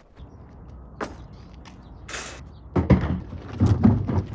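A door being worked: a few clicks and knocks, then a louder low rumbling clatter with sharp knocks in the second half.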